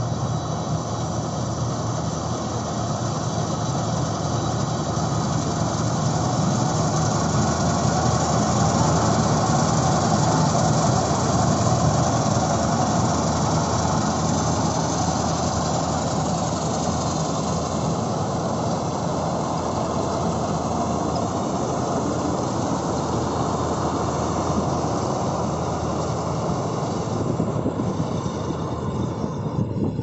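Kartar 4000 combine harvester running while it cuts wheat: a steady, continuous mechanical drone from its engine and machinery, growing a little fainter in the second half as the machine moves off.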